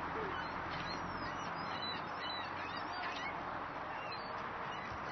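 Birds calling in many short, high chirps over a steady rushing background noise.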